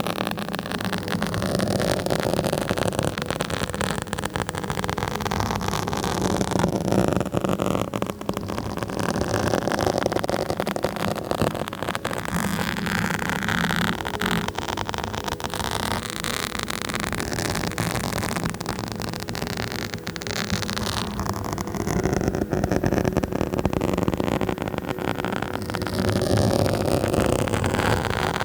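Microphone being scratched directly: continuous close scratching noise that swells and eases every few seconds.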